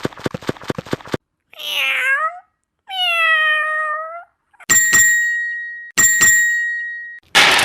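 A cat meowing twice, each meow a short call falling in pitch, after a run of quick clicks. Then two ringing, bell-like dings and a burst of hiss near the end.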